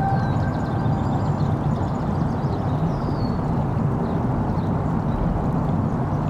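Muffled underwater rumble and water noise picked up by a camera submerged in a swimming pool.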